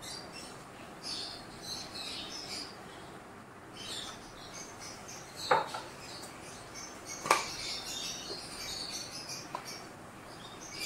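Small birds chirping in the background, with two sharp taps about five and a half and seven seconds in.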